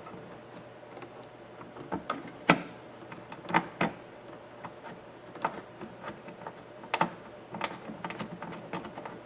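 Irregular clicks and light knocks of a 10 mm bolt being fitted by hand into the door handle mount of an SUV door, about a dozen sharp taps spread unevenly.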